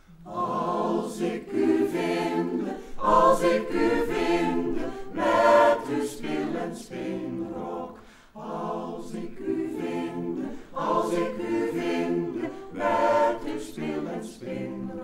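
Chamber choir singing a cappella, the voices entering together at the start; the singing breaks off briefly about eight seconds in, then resumes.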